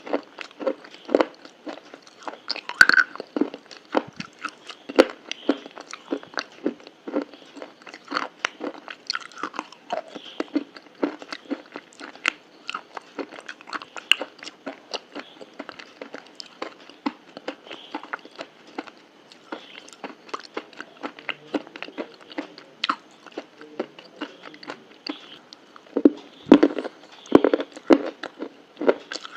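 Close-miked chewing of crunchy food: a dense run of short crisp crackles, several a second, with a few louder, heavier bites near the end.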